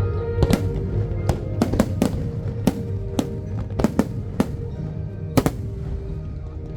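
Fireworks bursting overhead: about a dozen sharp bangs at irregular intervals, some in quick pairs, the loudest about five and a half seconds in. Music plays underneath.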